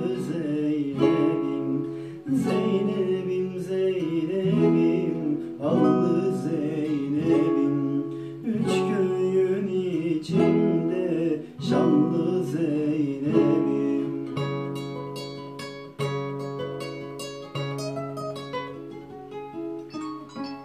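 Classical guitar strummed as a folk-song accompaniment, with a man's singing voice over it for about the first fourteen seconds; after that the guitar plays on alone, a chord about every second and a half.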